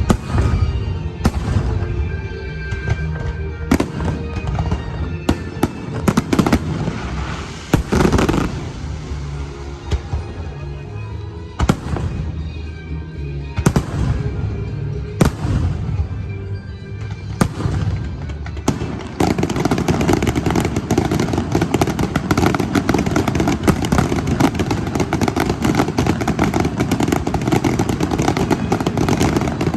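Aerial fireworks bursting with sharp bangs every second or two over music played along with the display. About two-thirds of the way in, the bursts give way to a dense, continuous crackling of many rapid small pops.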